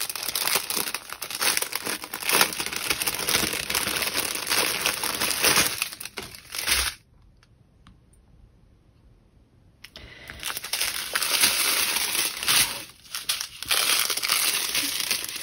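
Plastic packaging crinkling and tearing as bags of diamond painting drills are pulled out and opened. The rustling stops for about three seconds partway through, then resumes.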